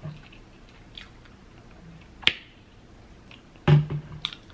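Close-up eating sounds while chewing rotisserie chicken: a few sharp, wet clicks and smacks of the lips and mouth, the loudest a little past two seconds in.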